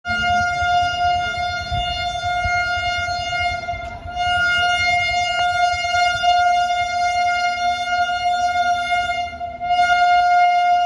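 An approaching electric locomotive's horn, sounding one steady note in long blasts with short breaks about four seconds in and near the end, over a low rumble.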